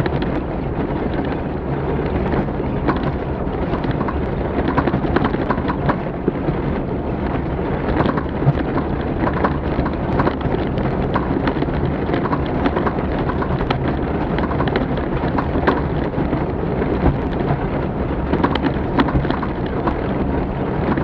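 Off-road rally vehicle driving over rough terrain, heard on board: a steady rumble of engine and chassis with frequent knocks and rattles from the bumps.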